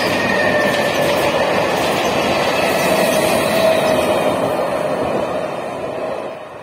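Electric multiple unit (EMU) suburban train running past over a railway bridge, steady wheel-on-rail noise with a faint steady tone under it. The noise fades away near the end as the last coach passes and the train draws off.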